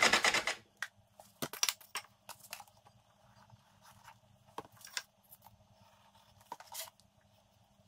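Hand plane shaving a board in quick, closely spaced strokes that stop about half a second in. Then scattered light clicks of wooden drawer parts being handled and set down, with brief rustles of the plastic sheet under them.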